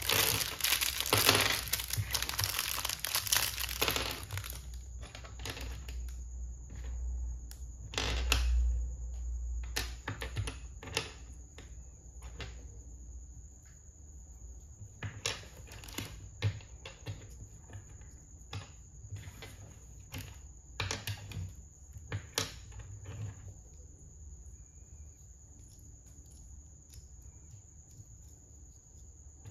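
A clear plastic parts bag crinkles for about the first four seconds as small LEGO pieces are worked out of it. After that come scattered sharp clicks and taps: plastic bricks set down on a wooden table and snapped together.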